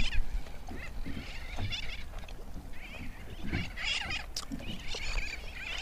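Many birds calling at once, with short high chattering calls overlapping and repeating over a low steady rumble.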